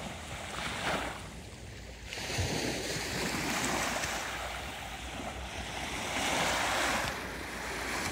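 Small waves breaking and washing up on a sandy shore, the surf swelling louder and falling back several times.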